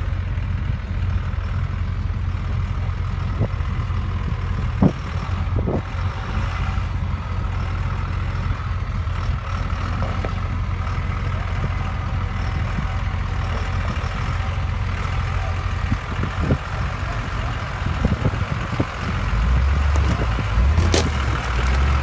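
Dodge Ram's Cummins turbo diesel, a 5.9-litre inline-six, running at low speed with a steady low rumble as the truck crawls over rocks, with a few short sharp knocks along the way. The engine gets louder near the end as the truck comes close.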